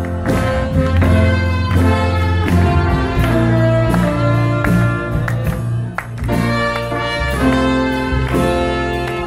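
Live band playing upbeat music with a steady beat and a strong bass line.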